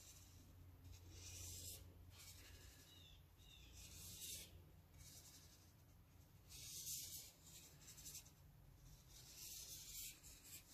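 Faint scratching of a black marker drawn across paper in several short strokes as it traces around a hand, the strongest stroke about two-thirds of the way through.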